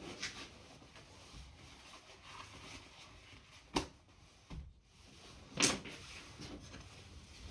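Two short knocks on a workbench: a sharp one a little under four seconds in and a louder one about two seconds later.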